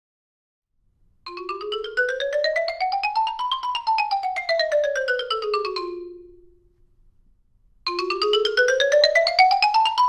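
Stone Percussion x60 xylophone played with mallets in rapid runs. About a second in, a quick scale climbs up the bars and comes back down, then dies away. Near the end a second rising run starts.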